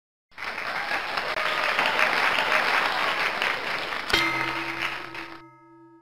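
Applause starts about a third of a second in and fades out near the end. About four seconds in, a single sustained musical note or chord sounds over it and keeps ringing.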